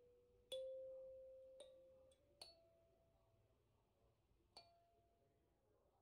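A metal-tined kalimba plucked slowly, one note at a time: about four notes spread out, each ringing and fading, the first, about half a second in, the loudest, the next two pitched a little higher.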